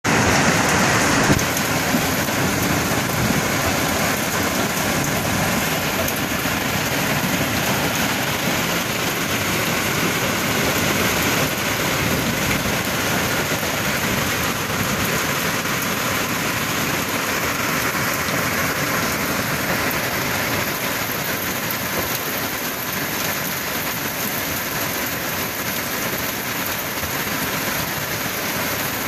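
Hailstorm: heavy rain and hail pelting down hard and without a break, a loud, dense hiss of stones and drops striking the street, roofs and parked cars.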